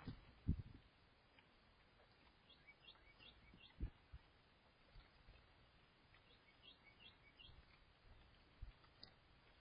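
Faint backyard bird chirping: two short series of about four quick, high chirps each, a few seconds apart. A few dull low thumps stand out, the loudest about half a second in.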